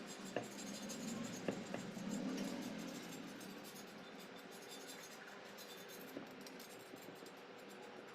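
Light scratching and scraping with a few sharp clicks of hand work on small hard parts, over a steady low hum. The clicks fall in the first two seconds, and the scraping is loudest around two to three seconds in.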